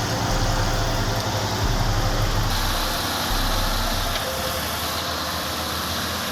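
Engine of heavy logging machinery running steadily, with a constant low drone and mechanical noise.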